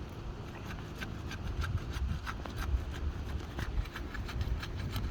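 Sealed asphalt roof shingles being pried up and unsealed, rubbing and scraping with an irregular run of small crackles as the sealant strip lets go.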